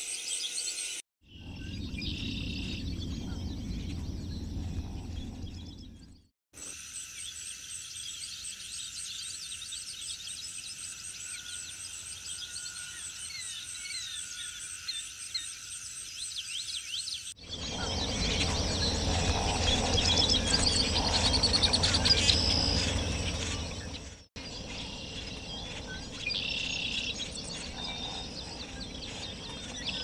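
A string of outdoor nature recordings with insects trilling in steady rapid pulses and various birds chirping and calling, the mix changing abruptly at several cuts. The loudest stretch, a little past the middle, has dense bird calls over a low rumble.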